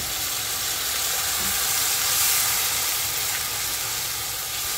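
Water poured into hot oil with curry powder, masala and fried onions, sizzling steadily as a spatula stirs it into a curry paste; the hiss swells a little about two seconds in.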